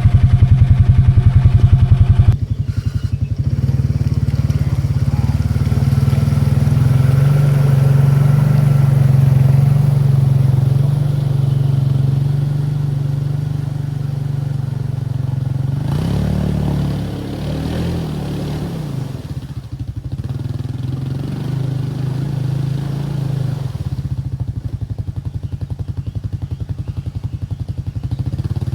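Can-Am 700 XMR ATV engine running steadily. It is louder for the first couple of seconds, then settles, and the engine note wavers briefly about two-thirds of the way through.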